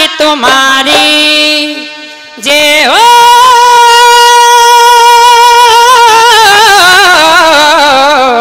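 Live Haryanvi folk devotional music: a harmonium plays stepped notes, then a woman's long held sung note comes in about two and a half seconds in, holding steady before it wavers and slides down in pitch near the end.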